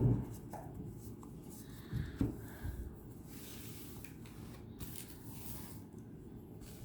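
Light handling noises from a tarot deck and its guidebook being moved on a table: a soft knock at the start and two more about two seconds in, then a brushing, sliding rustle for a couple of seconds.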